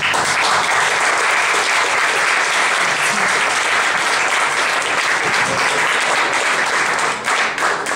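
Audience applauding at the end of a song, starting suddenly as the music stops and thinning out about seven seconds in.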